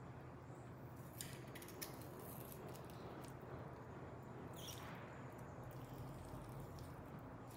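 Knife slicing through roast pork loin held with a fork: faint soft cutting, with a few light clicks of the cutlery between one and two seconds in and a short scrape near the middle.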